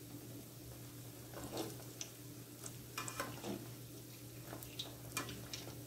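Rice fritter balls deep-frying in oil in an aluminium kadai: a soft sizzle with scattered crackles and pops, and a perforated metal ladle scraping and clicking against the pan as the balls are turned.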